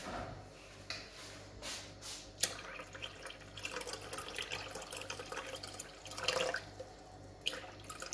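Water poured from a plastic measuring cup into a food processor's stainless-steel bowl, splashing and trickling, with a few light knocks of the cup.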